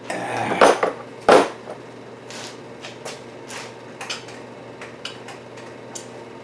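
Metal tools and parts clanking as they are handled and set down around a milling machine and its vise: a rattle and one sharp, ringing clank in the first second and a half, then lighter clinks and taps.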